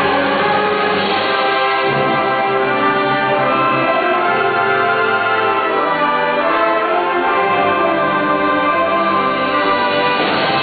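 High-school symphonic band playing a piece in full ensemble, sustained chords at a steady, loud level.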